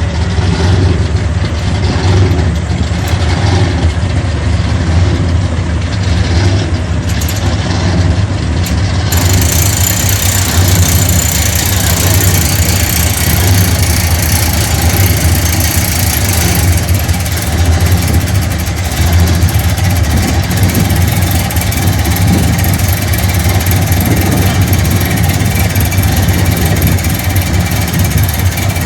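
Large engine idling with a steady, loud low rumble.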